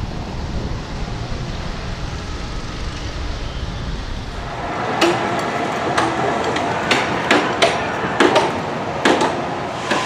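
Wind rumbling on the microphone, then from about halfway through a run of sharp, irregular hammer blows from roller coaster construction work, roughly two a second.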